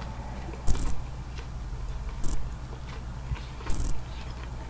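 Close-up chewing of a dipped piece of sesame chicken, with three short wet mouth sounds about a second and a half apart over a steady low hum.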